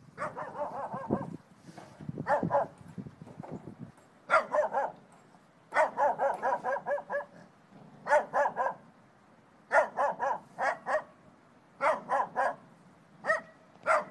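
A dog barking in repeated bursts of quick, high-pitched barks, about eight bursts with short pauses between them.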